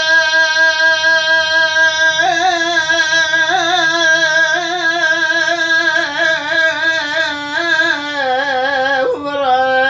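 Solo voice in Iraqi folk singing holding one long steady note, then after about two seconds breaking into an ornamented, wavering melismatic line that steps slowly down in pitch toward the end.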